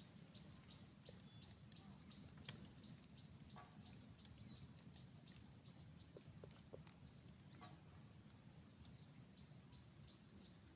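Near silence: faint outdoor ambience, with a thin high whine that comes and goes and scattered faint ticks and chirps.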